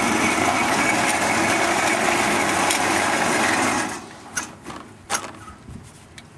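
The small motor that drives the sawmill's raise-and-lower mechanism runs steadily for about four seconds and then stops. Two sharp clicks follow.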